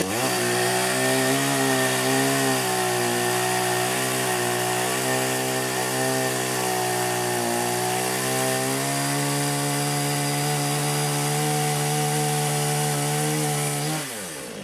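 Full Boar 53cc two-stroke petrol chainsaw held at full throttle, cutting through wood, its pitch dipping slightly under the load. About 14 seconds in the throttle is released and the engine note falls away.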